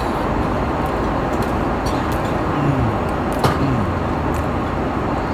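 Steady roar of an airliner cabin in flight, the even noise of the engines and air rushing past the fuselage, with a few light clicks and one sharper click about three and a half seconds in.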